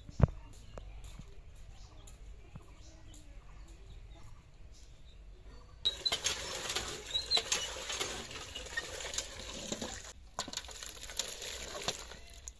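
A sharp knock just after the start, then, about halfway through, water gushing in spurts from a hand pump into a metal bucket as the pump handle is worked, with a short break near the end.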